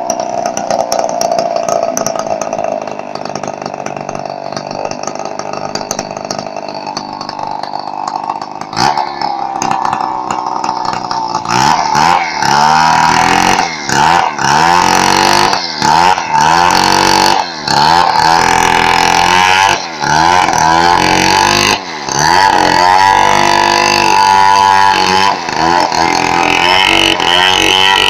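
Two-stroke chainsaw running while cutting wood into planks. For about the first ten seconds it runs steadily. After that its engine pitch dips and recovers again and again, about once a second, with brief drops in loudness.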